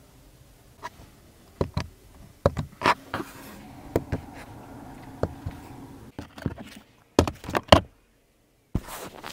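Clicks and knocks of fingers pressing buttons and handling the trim of a Geely Galaxy E8's center console, about a dozen sharp ones scattered through. A faint steady hum sits under them for a few seconds in the middle, and the sound drops out briefly near the end.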